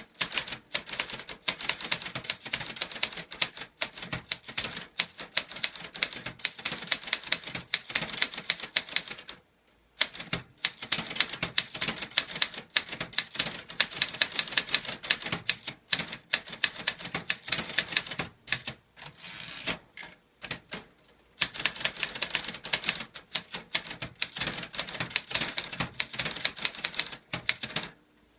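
Korean Clover Top Star 10s manual typewriter being typed fast, with no ink ribbon fitted, so the typebars strike the paper directly. Runs of rapid keystroke clacks break off briefly about a third of the way in and again around two-thirds of the way through.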